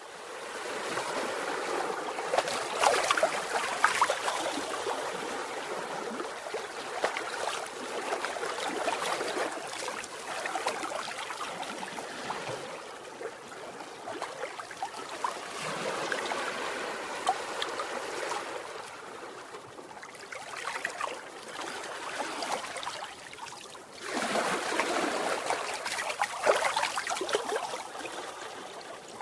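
Ocean waves breaking and washing up on the shore, the rush of water swelling and ebbing away every several seconds.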